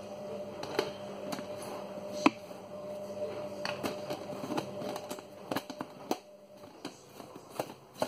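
Clicks and knocks of a plastic personal-blender cup being handled as its blade base is fitted and screwed on and the cup turned over, with one sharp knock a couple of seconds in. A faint steady hum underneath stops about six seconds in.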